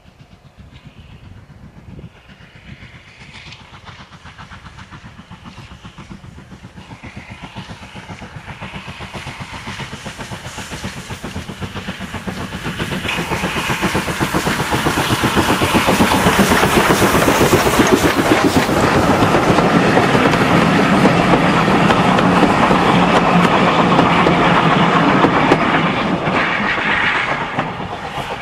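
LNER N7 0-6-2 tank locomotive No. 69621 running under steam with its coach, approaching and passing close by. Its rhythmic running builds steadily in loudness for about fifteen seconds, stays loud as the engine goes past, then starts to fade near the end.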